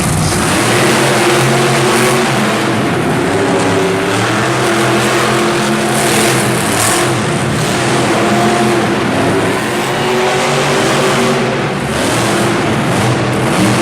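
Monster truck engines running loudly and revving, the engine pitch rising and falling.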